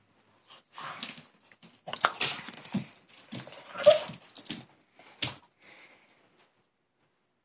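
A dog making short, excited vocal noises in irregular bursts while it goes after a laser pointer's dot, the loudest about four seconds in; the noises stop about six seconds in.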